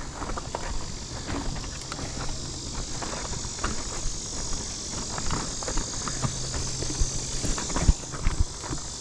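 Footsteps on a rough, rocky trail with scattered knocks and clatter as a mountain bike is walked down a steep section, over a steady high hiss.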